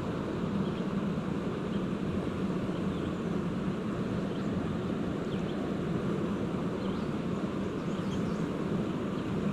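Steady outdoor rushing noise with a constant low hum running through it, and a few faint high chirps.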